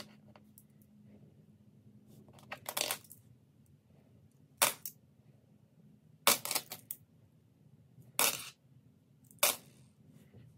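Australian $1 coins clinking as they are handled and set down: five short bursts of clinks, a second or two apart.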